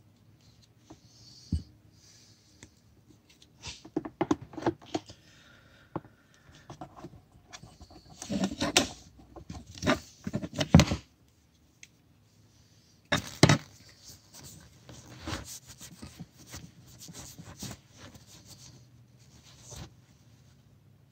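Irregular clicks, knocks and rubbing from a knife and a spring clamp being handled on a workbench, in clusters with short pauses between them.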